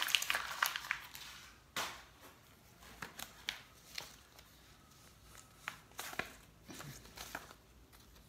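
Paper crinkling as a sheet is crumpled in the hand for about a second, then a sharp tap and light, scattered rustles and taps of paper and an envelope being handled.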